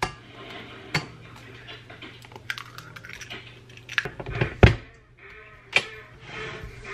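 Scattered sharp clicks and knocks as an egg is cracked against a stainless steel stand-mixer bowl and the mixer's tilt-head is swung down, with the loudest knock about two-thirds of the way in.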